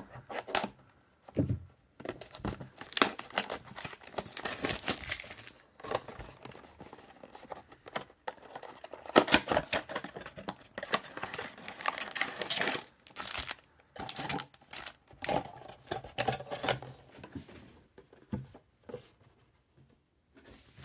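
Cardboard trading-card box being slit open and unpacked by hand: irregular crinkling, tearing and rustling of the wrapping, cardboard and foil card packs, with many small clicks.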